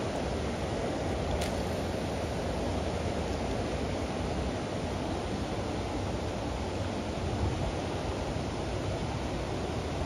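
Steady rush of a fast river pouring over boulders and small rapids, with a faint single tick about one and a half seconds in.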